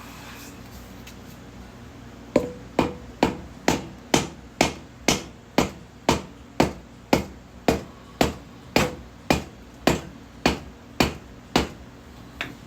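A run of about twenty hammer blows on metal, evenly spaced at roughly two a second, each with a short ring, starting a couple of seconds in; one softer tap near the end.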